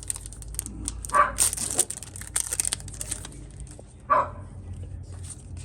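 A dog barking in the background: two short barks, about a second in and about four seconds in, with light rustling and clicking of cards being handled between them.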